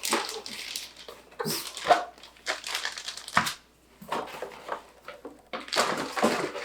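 Cardboard box and plastic packaging being handled: irregular rustling and crinkling with a few light knocks.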